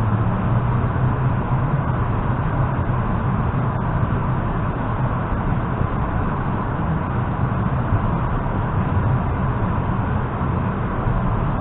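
Inside an ЭП2Д electric multiple unit running between stations: a steady rumble of the running gear and wheels on the rails, with a faint steady tone above it.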